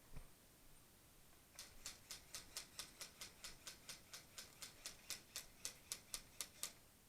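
A steady run of sharp, faint clicks, about four a second, starting a second and a half in and stopping shortly before the end.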